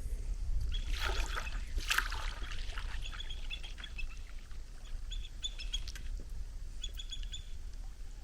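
Bald eagle giving high, chattering calls in three short runs of quick notes, an agitated call at a person near its feeding spot. About a second in there is a brief rush of splashing water.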